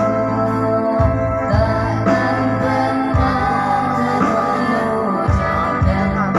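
Music with a steady bass line and a singing voice.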